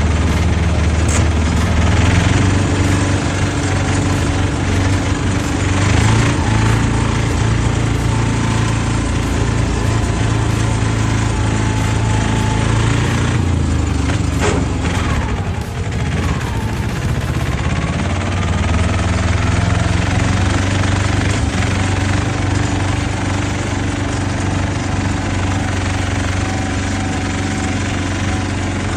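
Engine of a patpat farm utility vehicle running continuously while driving off-road, its pitch rising and falling as the throttle and load change, with a brief dip in the middle.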